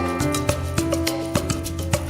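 Background music with a steady beat and plucked, guitar-like notes.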